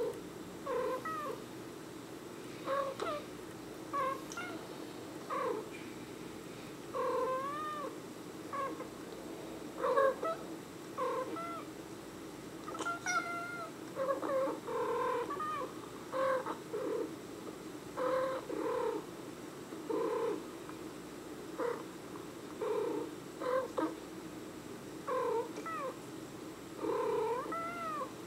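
Cats meowing back and forth: a long run of short meows, many rising then falling in pitch, about one a second, over a steady low hum.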